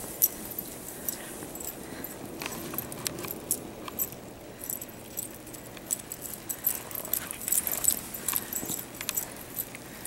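Metal tags and clip on a Siberian husky's collar jingling in quick, irregular clinks as the dog bounds through deep snow.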